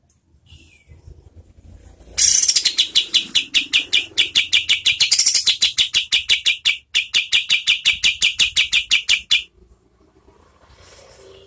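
Kapas tembak songbird singing its rapid 'tembakan' burst. After a few faint short calls, about two seconds in it breaks into a loud, very fast, even run of sharp high notes, roughly seven a second. The run lasts about seven seconds with one tiny pause, then stops abruptly.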